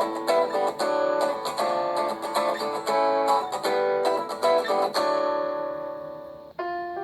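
Samsung Galaxy S4 stock ringtone: a plucked guitar melody of quick notes that ends on a held chord fading out about five seconds in. Another ringtone with sustained keyboard-like tones starts shortly before the end.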